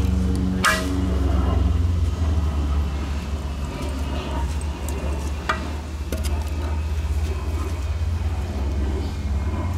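A steady low hum, over which sticks of firewood knock sharply as they are laid across a small kindling fire in a metal fire ring. The loudest knock comes just under a second in, and another about five and a half seconds in.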